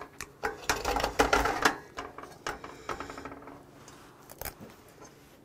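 Metal spoon scraping and clinking against a steel frying pan, scraping up the crisped fried rice stuck to the bottom, in a quick run of sharp scrapes for about the first two seconds. After that, softer scattered clicks and chewing as the rice is eaten.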